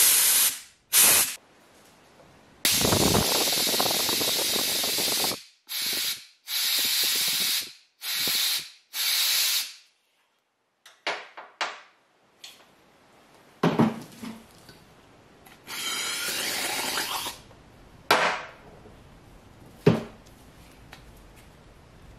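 Toyota Prius 2ZR engine fuel injector on the bench, pulsed open from a 12-volt battery with carburettor cleaner and light air pressure behind it, spraying in hissing bursts, some under a second and one nearly three seconds long, to flush out a clogged injector. Later bursts are quieter, and a sharp click comes near the end.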